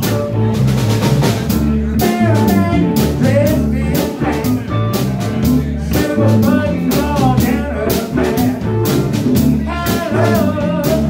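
A live blues band playing electric guitars over a drum kit with a steady beat.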